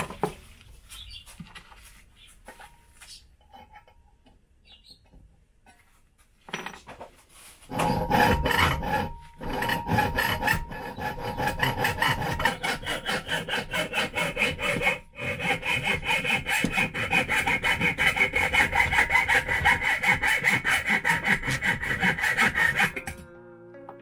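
Hacksaw cutting through half-inch copper tube in quick, even back-and-forth strokes. It starts about a third of the way in after some quiet handling, breaks off briefly twice, and stops just before the end, where guitar music comes in.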